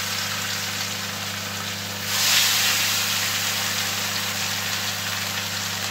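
Fish pieces sizzling as they fry in very hot oil in a wok; the sizzle swells about two seconds in as another piece is laid into the oil. A steady low hum runs underneath.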